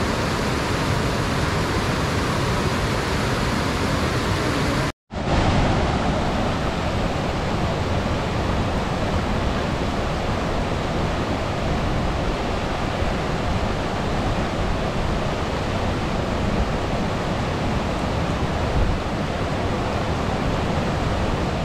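Steady rush of a fast-flowing mountain stream, broken once by a short gap of silence about five seconds in.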